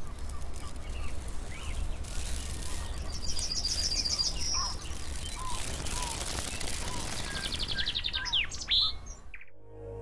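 Small birds chirping and calling over a steady low hum, with a fast trill of rapidly repeated high notes a few seconds in and another near the end. Music starts just before the end.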